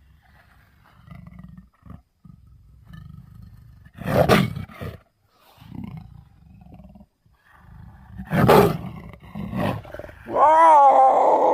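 Leopard growling low and rumbling, with two loud roars about four and eight and a half seconds in and a shorter one just after. Near the end a loud, wavering, higher-pitched call starts.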